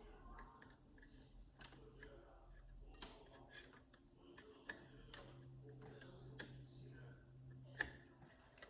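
Faint, scattered clicks and taps as fingers work at an AMD Threadripper socket's latch and rail frame, which has not popped up. A low steady hum runs underneath.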